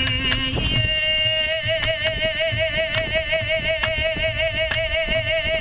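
A Hawaiian chanter holds one long note with a steady wavering vibrato, starting about a second in and lasting nearly five seconds, over regular drum beats.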